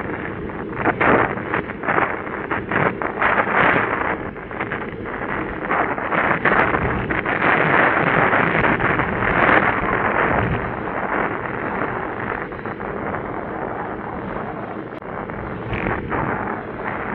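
Wind buffeting the microphone of a bicycle-mounted camera while riding, a loud gusty noise with irregular sharp pops and crackles throughout.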